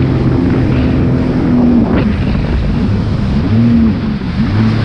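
Jet ski engine running under way, its note rising and falling with the throttle and dipping briefly about four seconds in.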